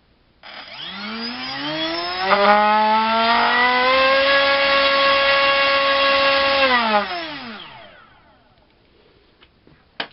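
RCinpower QAV2206-1900KV brushless drone-racing motor spinning an APC 6x4 electric propeller on a thrust stand: it spins up with a rising whine, holds a steady high-speed whine for about four seconds, then winds down and fades. A sharp click near the end.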